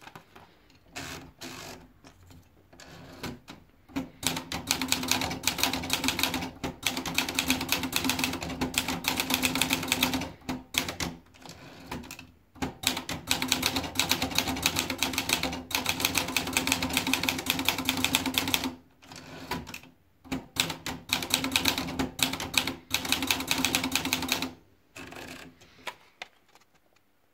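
Olivetti Valentine S manual portable typewriter being typed on: fast runs of key strikes, several seconds each, broken by short pauses and a few single clicks, stopping shortly before the end.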